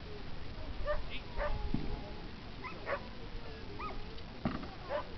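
Dogs barking and yipping at a distance: short, high barks coming irregularly, about nine in a few seconds.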